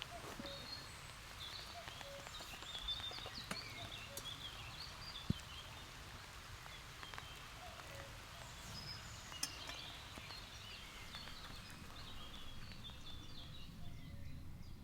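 Birds chirping and singing in woodland, many short calls throughout, over a low steady rumble, with a couple of sharp clicks.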